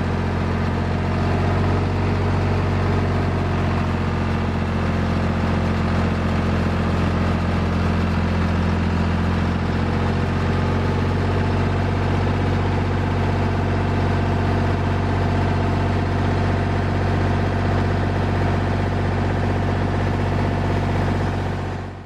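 Tractor engine running steadily at an even speed while its loader sets a heavy pine log onto the sawmill bed.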